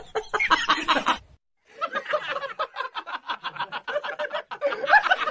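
A voice speaking in the first second, then a brief silence at a cut. After it comes a quick, even string of short snickering laughs, many a second.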